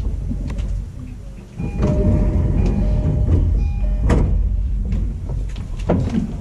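Sound inside a JR E233-series electric commuter train car with its sliding passenger doors working. Under it runs the car's low rumble, with several steady tones and a couple of sharp knocks.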